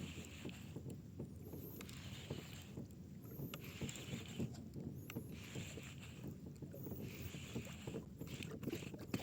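Water lapping against a small fishing boat's hull, a soft wash coming round about once a second over a steady low rumble.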